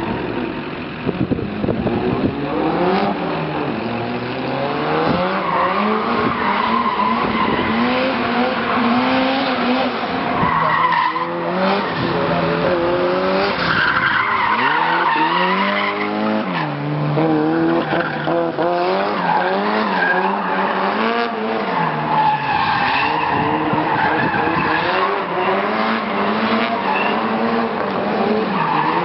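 A drift car's engine revving up and down again and again as the car slides sideways, with the tyres squealing and skidding through the drift.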